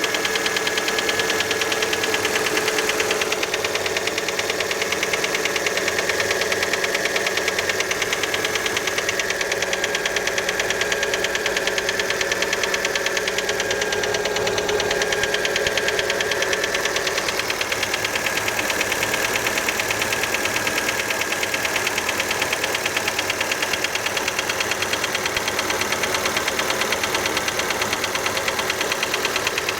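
Fiat Panda engine running cold just after starting, with a fast, steady knock. Many take the knock for piston slap from a worn piston skirt.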